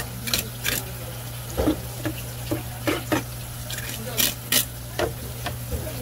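Knife and hands working a rock bream on a cutting board: about a dozen short, irregular clicks and knocks over a steady low hum.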